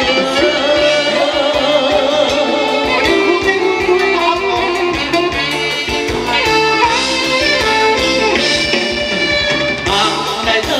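Thai ram wong dance music from a live band, with a singer over a steady dance beat.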